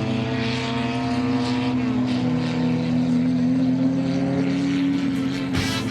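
Racing engines running hard at high revs, their pitch holding fairly steady with one engine dropping in pitch about two seconds in.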